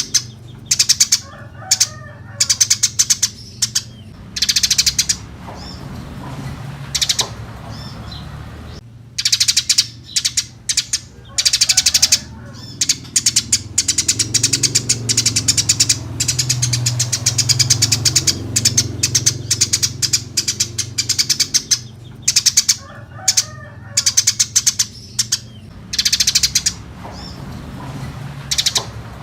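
Eurasian tree sparrows chirping: rapid, high-pitched chirps in dense bursts of a second or two with short pauses between, over a steady low hum.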